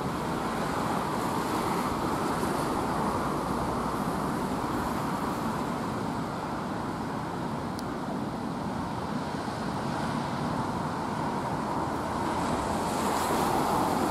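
Steady rumble of distant traffic: an LNER Class 43 HST crossing the Tay Bridge, blended with road traffic on the nearby street. It grows a little louder near the end.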